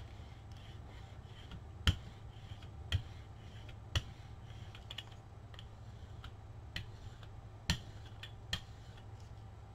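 Scattered light clicks and taps of acrylic painting supplies being handled on a work table, about five sharper ones spread irregularly among fainter ticks, over a steady low hum.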